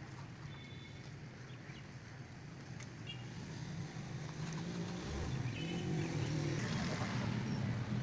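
An engine running, with a steady low hum that grows louder about halfway through.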